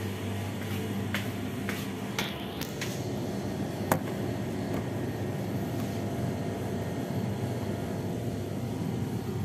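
Steady low drone of a running fan, with a few light clicks and one sharper knock about four seconds in from a phone being handled and set down.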